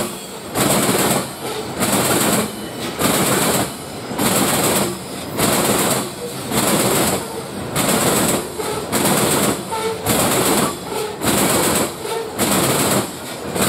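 Freight train rolling past, its wheels clacking over the rail joints in a steady rhythm of a little under two beats a second.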